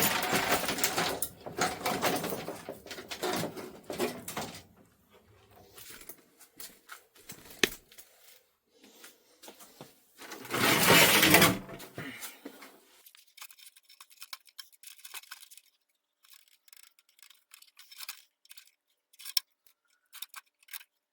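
Handling noises from a CRT TV being taken apart: a stretch of loud scraping and rustling, another about ten seconds in, then scattered light clicks and taps.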